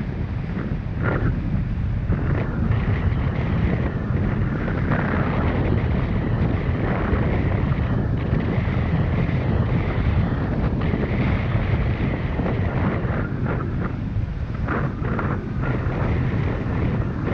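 Steady wind rush buffeting the microphone of a motorcycle-mounted camera while riding, with the motorcycle's engine running underneath.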